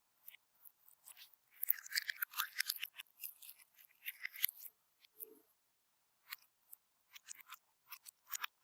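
Slime being pressed and worked by hand, crackling and popping in quick clusters about two seconds in and again near the middle, then thinning to scattered single pops.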